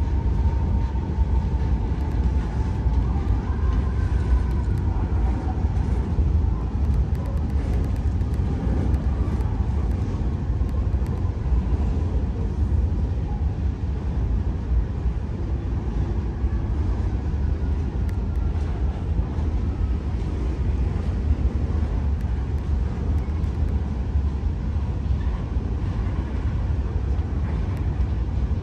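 Freight cars rolling past, a steady low rumble of wheels on rail, with faint high tones now and then that drift slowly in pitch.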